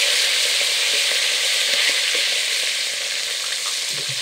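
Thick slabs of pork belly searing in hot oil in a deep pot: a loud, steady sizzle that eases slightly toward the end, the sound of oil hot enough for searing.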